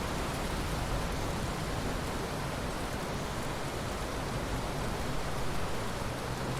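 Steady, even rainfall, a constant hiss of rain with a low rumble underneath and no distinct claps or drops standing out.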